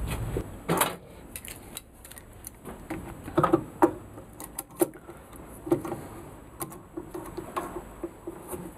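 Steel sliding-bar F-clamp being set over a wooden rail and its screw handle turned tight: a string of irregular clicks and knocks of metal on wood, loudest around the middle.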